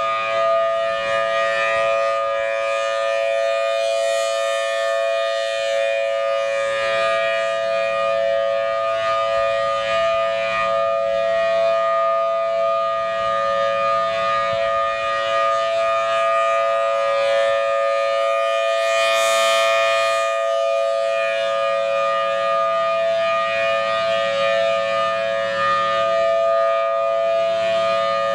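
Federal Signal Thunderbolt 1000T outdoor warning siren sounding at full pitch: a steady, loud two-note chord with no wind-up or wind-down. A brief rush of high hiss comes about two-thirds of the way through.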